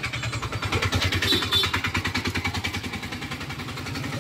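A small vehicle engine running close by with a rapid, even pulsing. It grows louder about a second in and eases slightly toward the end.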